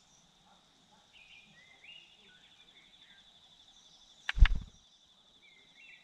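A sudden loud flutter with a low thump about four and a half seconds in, the white-tailed robin's wings as it flies off its ground nest. Behind it, a steady high insect trill and a few short bird chirps.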